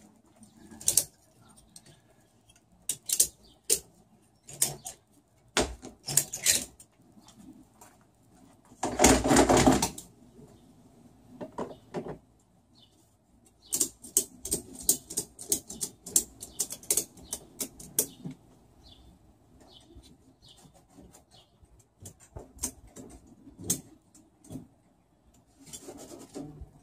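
Tie-down straps being worked over a dinghy: a ratchet clicking in quick runs, strongest between about 14 and 18 seconds in, with scattered knocks and a one-second rasp of strap webbing pulled through about nine seconds in.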